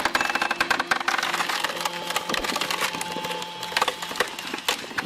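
Hydraulic log splitter forcing wood apart: rapid, irregular cracking and splintering over a steady machine hum.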